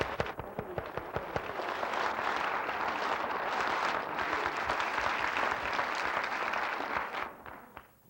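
Audience applauding: scattered clapping that swells into steady applause, then fades away near the end.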